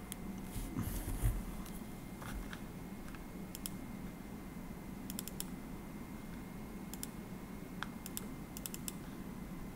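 Scattered, sharp clicks of a computer mouse and keyboard in use, with a dull thump about a second in. A steady low hum runs underneath.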